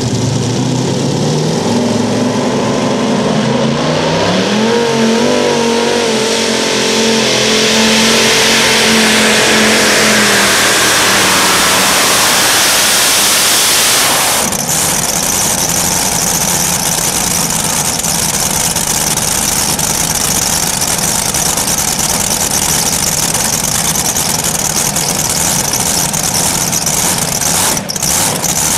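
Multi-engine modified pulling tractor at full throttle on a pull: the engines' pitch climbs in two surges over the first five seconds, then holds high and loud. About fourteen seconds in the throttle cuts off suddenly as the pull ends, and the engines run on at low speed.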